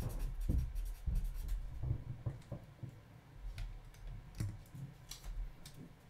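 Scratchy writing on paper, with scattered light clicks and taps from handling things on a tabletop, a little louder in the first two seconds.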